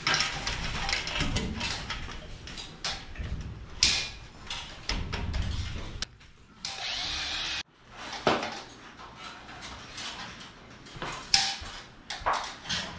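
Power drill running in short bursts into the metal ceiling frame at the W-clips, amid knocks and clatter of metal framing. One steadier run of the drill about two-thirds of the way through cuts off suddenly.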